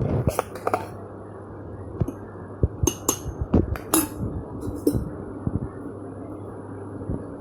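Kitchen utensils clinking and knocking against glass dishes in about a dozen irregular taps, some with a short ring, over a steady background hiss.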